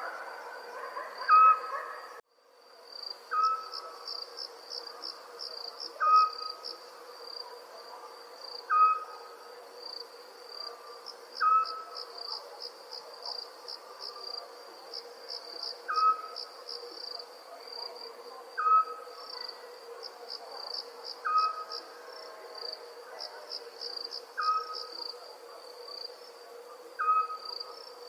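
Crickets chirping in steady, fast pulsed trills, with a short owl-like call repeated about every two and a half seconds as the loudest sound. The whole soundscape cuts out for a moment about two seconds in.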